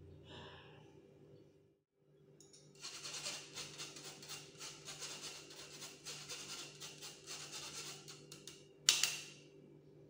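Metal spoon scraping and stirring flour and cocoa powder through a stainless-steel mesh sieve: a rapid, continuous rasping for about six seconds. Near the end comes one sharp knock.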